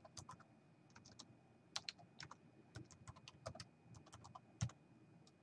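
Faint computer keyboard typing: keystrokes in short, irregular runs.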